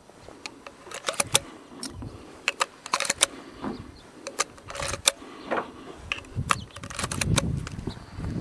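Cartridges being pushed into the tube magazine of a Marlin 30TK lever-action .30-30 carbine through its spring-loaded side loading gate: a string of sharp, irregular metallic clicks and clinks. Low handling rustle joins in near the end.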